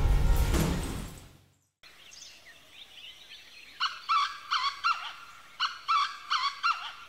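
Background music fading out, then a bird calling: two quick series of short, repeated calls about a second apart, with fainter chirps before them.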